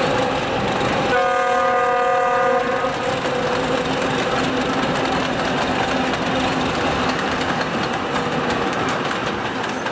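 Passenger train hauled by a Czech-built T669 diesel locomotive running past, with a steady rumble. About a second in, a horn sounds in one blast of about two seconds.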